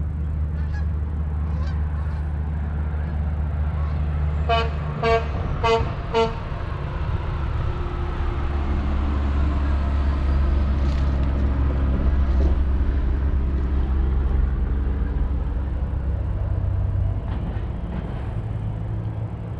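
A vehicle horn tooting four quick times about five seconds in, over the steady low rumble of passing road traffic that swells for a while after.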